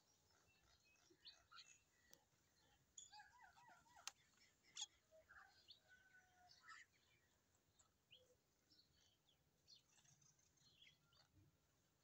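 Faint, scattered bird chirps and short whistled calls, with a couple of sharp clicks about four to five seconds in.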